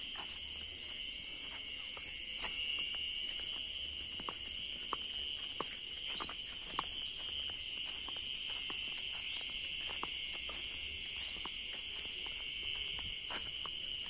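Night insects, likely crickets, trilling in a steady, continuous high-pitched chorus. Scattered short clicks and ticks are heard over it.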